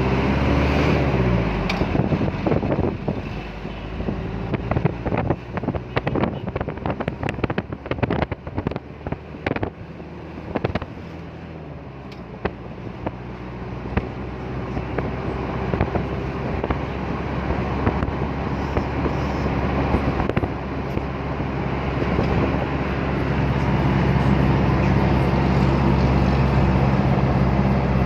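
Motor vehicle engine and road noise running steadily, with a spell of rapid clicks and knocks in the first half; the engine hum grows louder near the end.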